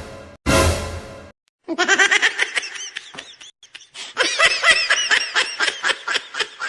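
A brassy, fart-like blast near the start, then high-pitched laughter in quick bursts from about two seconds in, with a short pause midway.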